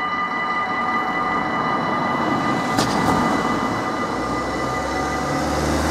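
Cars driving over a railway level crossing with the barriers raised: a steady rushing of traffic, two sharp clunks about three seconds in as wheels hit the rails, and a car engine passing close near the end.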